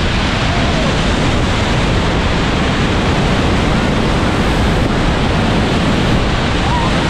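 Bridal Veil Falls at Niagara, heard close up: the steady, loud rush of water crashing onto the rocks at its base.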